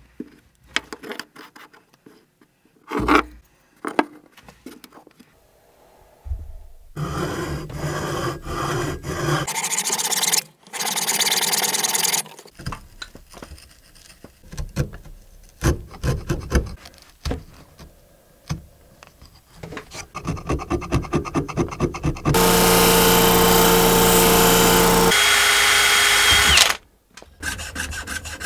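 Hand woodworking on wooden tanto fittings: a blade scraping and cutting into the wood, knocks, and runs of rapid rubbing and sawing strokes. About three-quarters of the way through, a power tool runs steadily for a few seconds. Near the end come quick back-and-forth strokes of a fret saw cutting wood.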